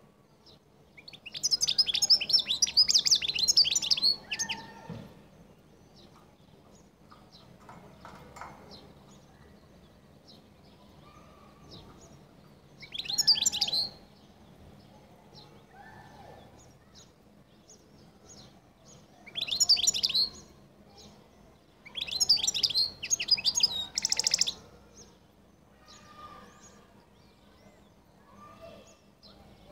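European goldfinch of the El Kala song type singing. It gives bouts of rapid, high twittering and trills, the longest about three seconds near the start and shorter ones through the middle and toward the end, with faint scattered chirps between them.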